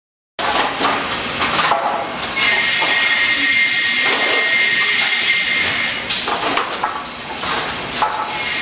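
Cameron Quick Rip saw line running while ripping boards: continuous loud machine noise with a high steady whine that comes in about two seconds in, drops away around six seconds and returns near the end, and a few sharp knocks.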